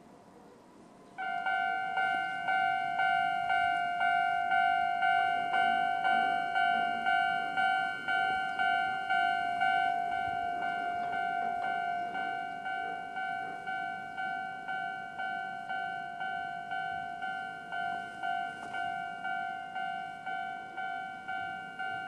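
Japanese railway level-crossing warning alarm of the older standard type, starting about a second in and ringing a repeated bell-like tone at about two strikes a second as the crossing activates for an approaching train.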